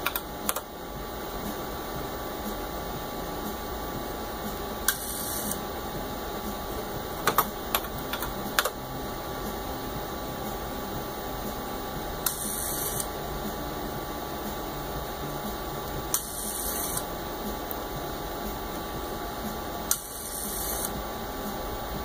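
Keystrokes on an old computer terminal keyboard, then a telephone rotary dial being turned and whirring back four times, each return lasting under a second, over a steady background hum.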